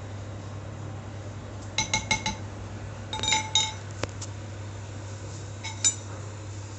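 Cutlery and dishes clinking: groups of short ringing chinks, four quick ones about two seconds in, a cluster a second later and a pair near the end, over a steady low hum.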